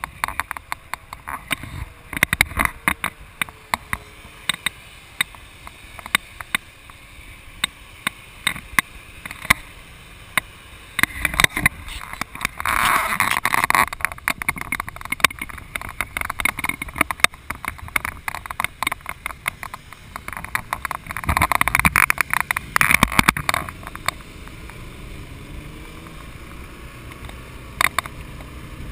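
Wind noise on the microphone of a camera mounted on a moving motorcycle: a steady rush broken by frequent sharp buffeting pops, with two louder stretches of rushing wind, about a third of the way in and again past two-thirds.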